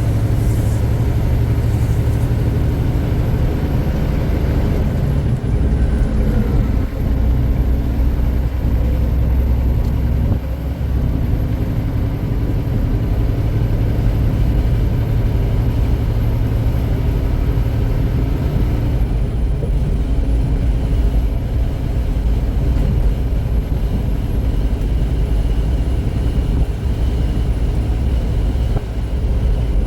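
Semi truck cruising at highway speed, heard from inside the cab: a steady low drone of the engine with road and tyre noise.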